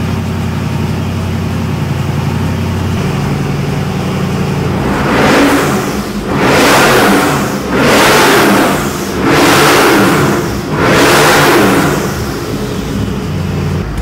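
Twin-supercharged 402-cubic-inch LS2 V8 on an engine dyno, idling steadily and then revved in five quick throttle blips about a second and a half apart before dropping back toward idle.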